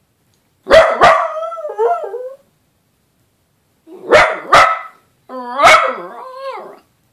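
Dachshund barking and breaking into short howls in three bouts. First a pair of sharp barks that trail off into a wavering howl, then a second pair of barks, then a bark that slides into a longer wavering howl near the end.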